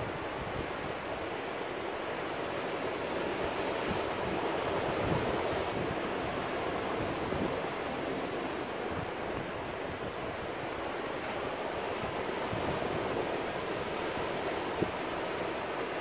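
Ocean surf washing in and breaking over a rocky shore: a steady rush of foaming water that swells a little a few seconds in.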